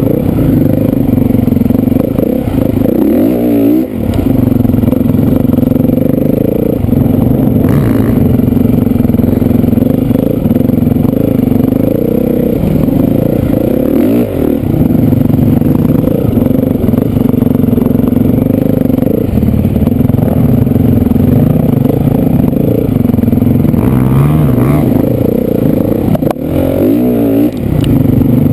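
Dirt bike engine running hard, heard from on board the bike, the throttle opening and closing so the pitch sweeps up and down a few times as it rides through leaf piles.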